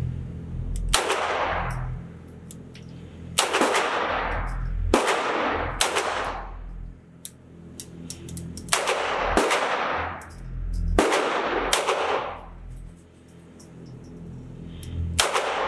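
Beretta U22 Neos .22 LR pistol fired six times at slow, uneven intervals, each shot echoing off the concrete walls of an indoor range for about a second.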